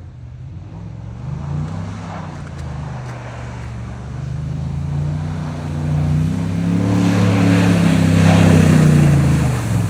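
Pickup truck engine revving hard while the truck drifts on snow. The revs rise and fall, climb to a sustained peak in the second half, then drop off sharply near the end.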